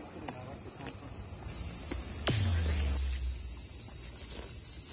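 Steady high-pitched chirring of insects in the roadside greenery. About two seconds in, a single tone sweeps quickly down and settles into a low hum for under a second.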